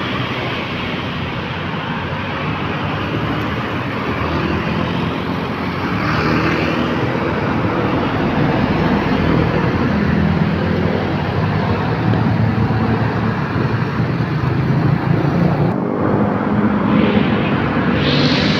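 Road traffic passing close by: motorcycles, cars and a coach bus, with a steady engine drone and tyre noise that grows louder about six seconds in.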